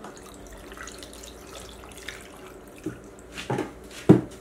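Water poured from a pitcher into a glass blender jar packed with tomatoes and onion, a steady pour. Near the end come a few short knocks, the loudest about four seconds in.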